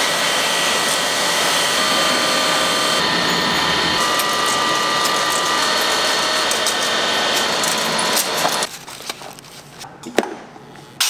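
Egg grading and packing machinery clattering steadily as eggs rattle along roller conveyors, with a few steady machine tones running through the clatter. A little past eight seconds in it drops to a much quieter hum, broken by one sharp clack near the end.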